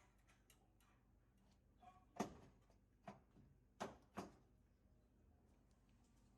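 Near silence with four faint, short knocks or clicks: one about two seconds in, another a second later, and two close together around four seconds.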